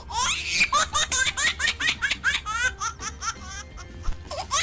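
High-pitched laughter in a quick run of short ha-ha pulses, about six a second. It pauses briefly near the end, then starts up again.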